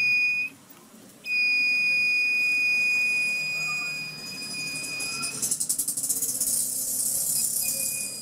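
Analog multimeter's continuity buzzer giving a steady high beep as the probes sit across a capacitor: the beep shows the capacitor is shorted. The beep breaks off briefly near the start and again about five and a half seconds in, when a crackling hiss takes over, and it comes back faintly near the end.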